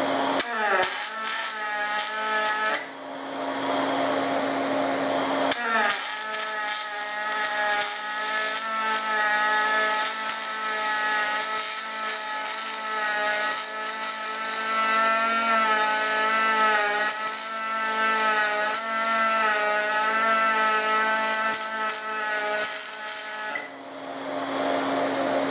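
Pulse MIG welding arc on aluminium from a water-cooled spool gun: a short burst of about two seconds, then a steady machine hum, then a continuous buzzing arc with a slightly wavering pitch for about eighteen seconds that stops near the end.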